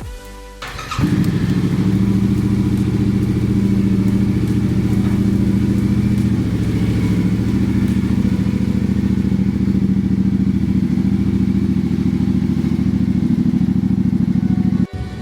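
Yamaha Tenere 700's parallel-twin engine starting about a second in, then running steadily at an even pitch after the crash repair, until it cuts off abruptly near the end.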